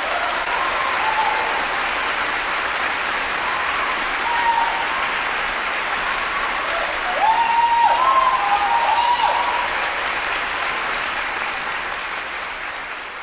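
Concert-hall audience applauding steadily, with a few short cheers heard above the clapping about four seconds in and again around eight seconds in; the applause slowly fades near the end.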